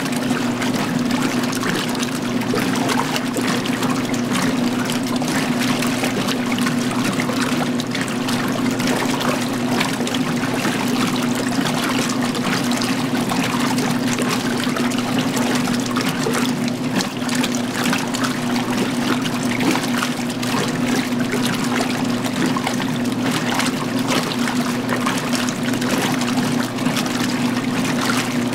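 Magic Chef 20-pound washer agitating during its rinse, water sloshing and swishing in the tub over a steady hum.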